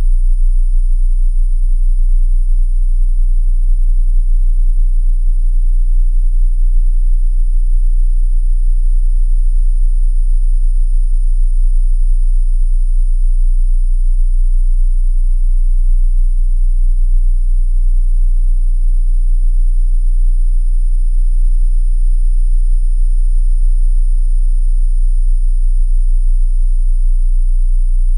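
A loud, steady, very deep hum that does not change, with faint, thin high-pitched whines held above it.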